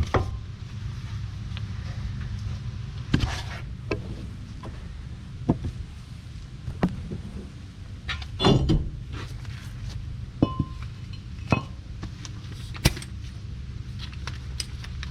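Scattered metallic clinks and knocks from tools and car parts being handled during wheel-hub work, irregular and separate, over a steady low hum.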